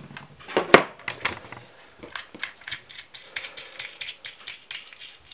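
Steel washers, nut and threaded rod of a home-made bearing press clicking and clinking as the press is unscrewed and taken apart by hand, with one sharp clink about three-quarters of a second in and a run of small metallic clinks later on.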